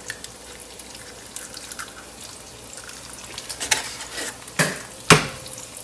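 Eggs frying in a nonstick pan with a faint, steady sizzle. A few sharp knocks come near the end, the loudest about five seconds in, as the next egg is cracked on the pan.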